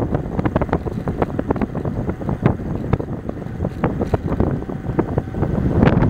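Wind buffeting the handlebar-mounted camera's microphone as an electric bicycle runs at full throttle at about 26 to 28 mph. Over it comes a constant clatter of small knocks and rattles from the bike and camera mount.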